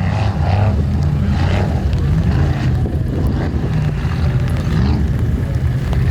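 Formula offroad buggy's engine running loud at high revs, its pitch rising and falling as the throttle is worked.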